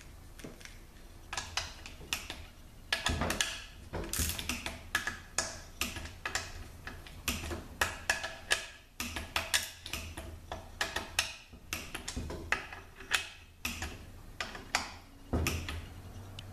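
Ratchet-head torque wrench clicking in irregular runs of strokes as transmission valve body bolts are run down to about 100 inch-pounds, with a duller knock about three seconds in and another near the end.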